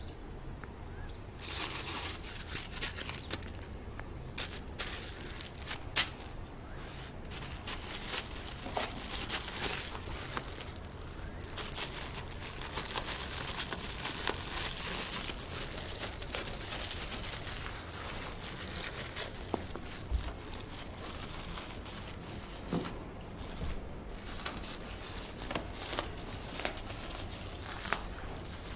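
Plastic bag crinkling and rustling as a Shiba Inu chews and paws at it, starting about a second and a half in, with a sharp click about six seconds in.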